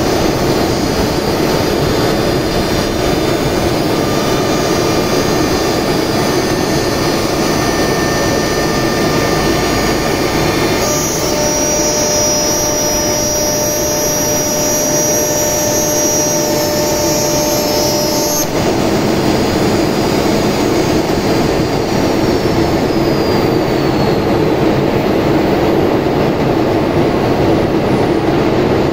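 Semac SM 1325B1 single-spindle CNC router running, its spindle cutting through a board under the brush dust shroud: a loud, steady machine whine and rush. From about eleven to eighteen seconds in, the pitch of the whine shifts to a different set of steady tones, then returns.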